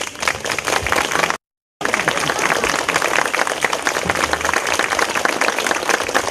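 Audience applauding as the aria ends, with a brief gap of silence about a second and a half in.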